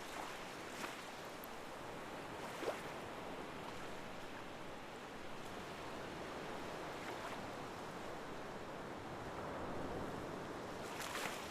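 Steady wash of moving water, like gentle waves, with a few brief splashes, the clearest about a third of the way in and another near the end.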